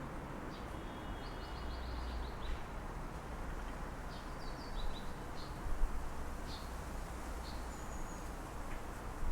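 Steady distant city traffic rumble with small birds chirping over it in short, scattered calls, including a quick run of notes about a second in.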